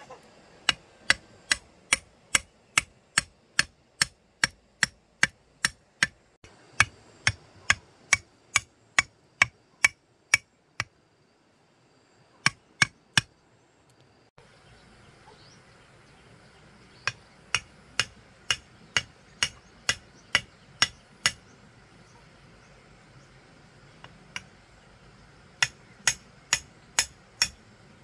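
Repeated sharp strikes of a hand tool, about two and a half a second, in runs broken by pauses.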